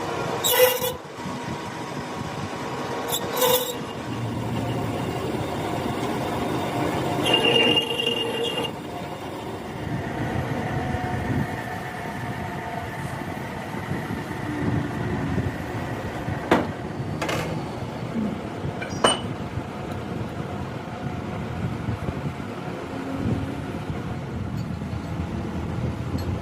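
A machine running steadily, with a few sharp metallic clicks or knocks.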